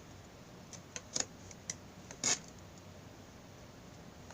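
A few short, separate scraping clicks from the Swiss Army Knife Huntsman's small folding wood saw working through a thin stick, the loudest about two seconds in, then a quiet stretch.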